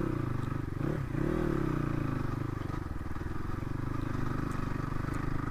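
Crossfire RM250 dirt bike's 250 cc four-stroke single-cylinder engine running under way. The revs rise and dip twice in the first two seconds, then hold steady.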